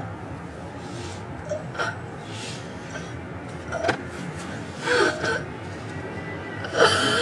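A woman's distressed gasping sobs and cries, short ones every second or two, the loudest and longest near the end.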